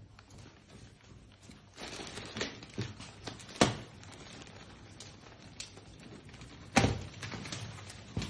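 Plastic wrap around a rolled memory foam mattress rustling and crinkling as it is handled, with two sharp knocks, one about three and a half seconds in and one about seven seconds in.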